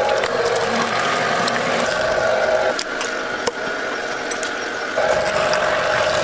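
Electric fish-skinning machine running with a steady mechanical whirr and scattered clicks as a flatfish is pushed through it to strip off the skin. The lower part of the whirr drops out for about two seconds in the middle.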